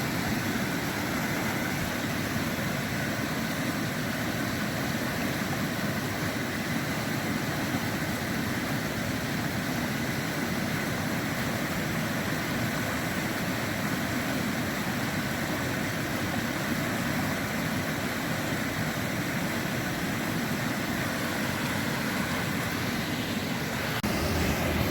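Small waterfall on a mountain stream, water rushing steadily; the rush gets a little louder about a second before the end.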